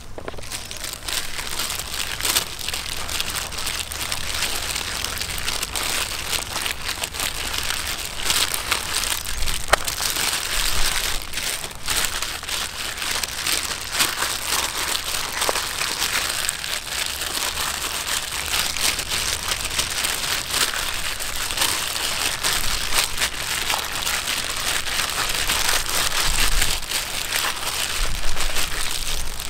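A plastic bag worn as a glove crinkling and rustling continuously as a hand rubs chili marinade into raw whole chickens, with many small crackles throughout.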